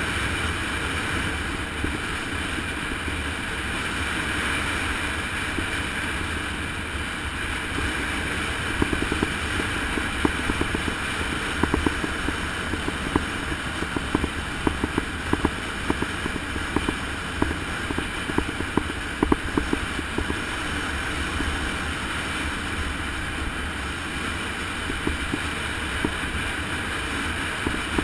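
Steady wind rushing over the microphone during a fast downhill ride. From about eight seconds in it is broken by many short clicks and rattles from road vibration.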